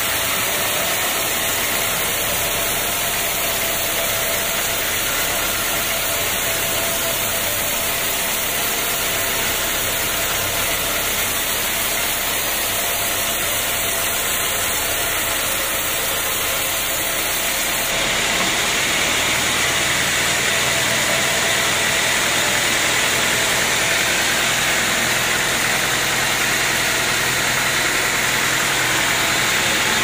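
Band sawmill running, its motor and blade making a steady mechanical noise; the sound shifts and gets slightly louder about two-thirds of the way through.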